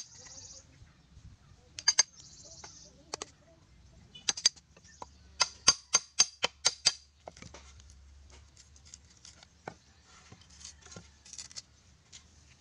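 Hammer blows on a chisel cutting a hole into a bamboo pole: sharp ringing knocks, a few spaced strokes, then a quick run of about eight near the middle, then fainter scattered taps.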